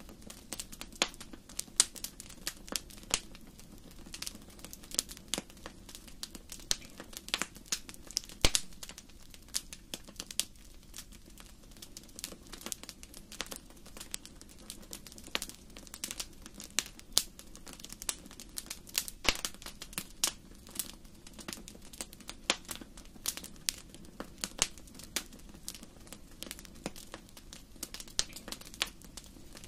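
Fire burning in a fireplace, crackling: irregular sharp pops and snaps, several a second, over a low steady rumble of the flames.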